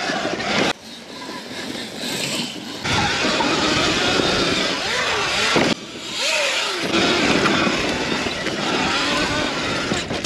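Sur-Ron Light Bee X electric dirt bike ridden along a dirt bush track: tyres rolling over dirt and leaf litter, with the bike's drivetrain noise. The sound drops away suddenly twice, about a second in and again near the middle, then resumes.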